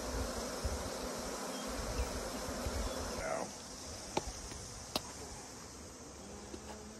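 Honeybees buzzing steadily around an opened hive, with a low rumble in the first half and two sharp clicks a little after the middle.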